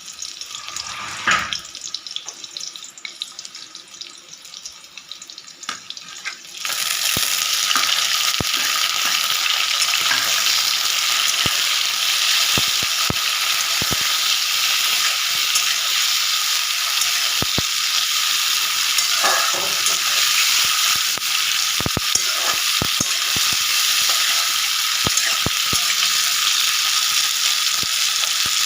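Food frying in hot mustard oil in a pan. A loud, steady sizzle starts suddenly about six and a half seconds in, with scattered pops and clicks. Before it there is a quieter stretch with a few clicks and a knock.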